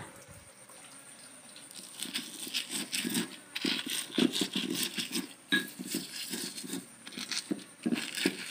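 Stone pestle crushing and grinding red chilies against a stone mortar (ulekan and cobek), making quick, uneven grating and knocking strokes that start about a second and a half in.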